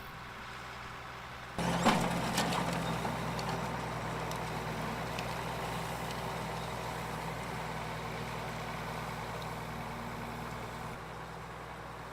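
Farm machinery engine running steadily. About one and a half seconds in it jumps louder, with a few sharp knocks, and it drops back to a quieter hum near the end.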